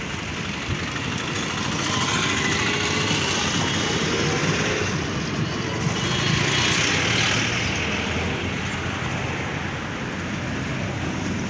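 Road traffic: motor vehicles running past close by, a steady noise that swells in the middle, as one vehicle goes by, and then eases off.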